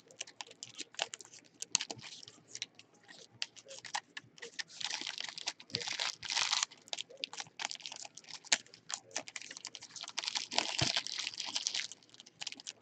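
Trading-card packs and cards handled at close range: quick clicks and flicks of cards being shuffled, with stretches of pack wrapper crinkling and tearing about five seconds in and again near ten seconds.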